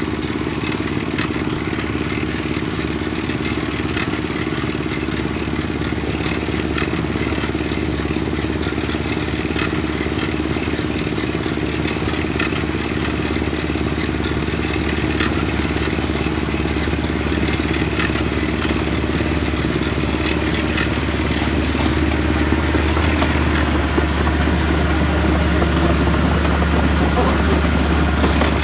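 Mini bulldozer's diesel engine running steadily while it works soil, with scattered metallic clicks and clanks; it gets a little louder in the last third.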